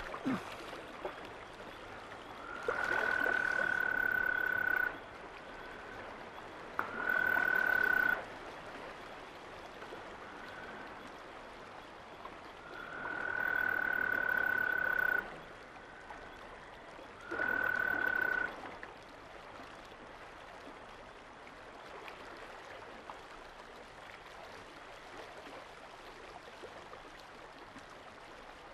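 A frog or toad calling in four long trills, each held at one steady, fairly high pitch for one to two and a half seconds, with short gaps between them. A single sharp crack comes at the very start.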